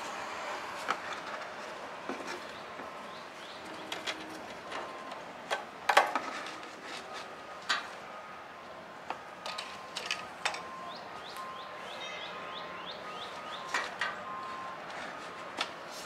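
Scattered sharp clicks and knocks of a plastic oil bottle against a mower engine's oil fill tube as motor oil is poured in, the loudest knock about six seconds in. Birds chirp in the background.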